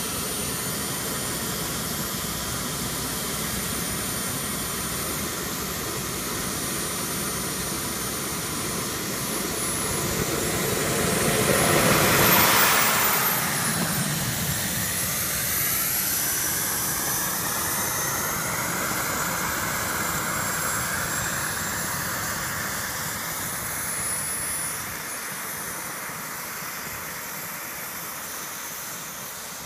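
JetCat P160 model turbine engine running with a steady high-pitched whine and rush. About twelve seconds in it surges louder, its whine climbing and falling back. It is a little quieter in the last few seconds.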